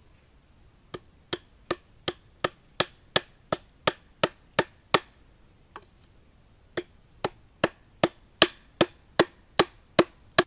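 Bamboo sticks being hammered into the husk of a green coconut: sharp, evenly spaced knocks at about three a second, in two runs of ten or more strikes with a short pause between them.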